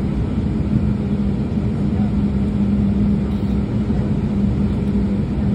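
Cabin noise aboard an Embraer E195-E2 with its Pratt & Whitney PW1900G geared turbofan running on the ground: a steady hum with a constant low drone.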